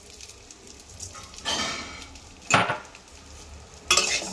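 Split mung dal frying in a little oil in an aluminium kadai, a faint sizzle under it. Three metallic knocks and scrapes of a spatula against the pan, the sharpest about two and a half seconds in.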